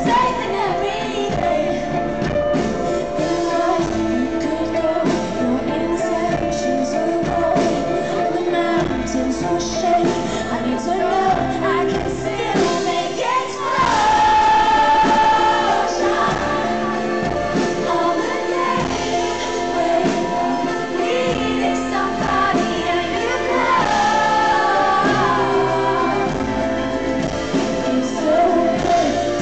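Live pop music: a woman singing long, gliding notes over held band chords.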